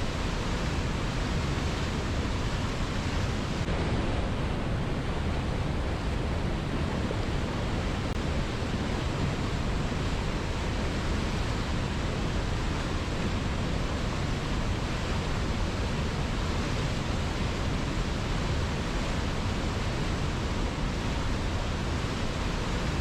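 A river's water rushing strongly and steadily, a dense even roar with no breaks.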